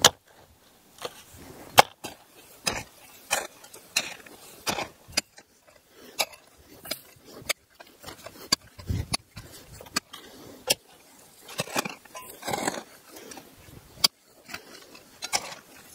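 Digging a planting hole by hand in dry soil: a two-handled post-hole digger and then a hoe striking and scraping the ground. Many short, sharp strikes come at an uneven pace, with brief scraping between them.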